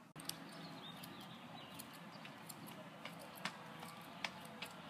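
Small scissors snipping grass: irregular sharp clicks a second or so apart over a faint outdoor hiss.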